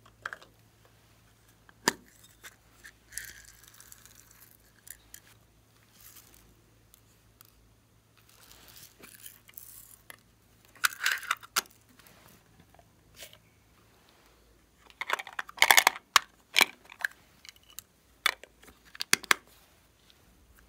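Small plastic containers and lids handled by hand while clay sprinkles and glitter go into a bowl of slime: scattered sharp clicks and short rustles, with the densest, loudest run about fifteen to seventeen seconds in.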